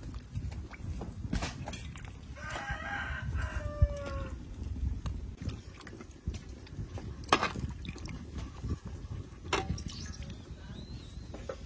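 A rooster crows once, a call of about a second and a half that slides down in pitch at the end, over a steady low rumble. A few sharp knocks come through, the loudest a little past halfway.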